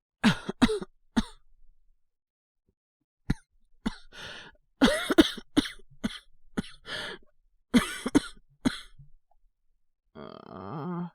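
A man's acted coughing, playing someone with a feverish cold: several fits of two to four coughs each, with pauses between them. A low groaning sigh starts near the end.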